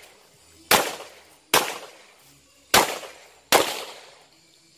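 Four pistol shots from a Glock 41 .45 ACP, fired at an uneven pace a little under a second apart. Each shot is a sharp crack followed by a short decaying echo.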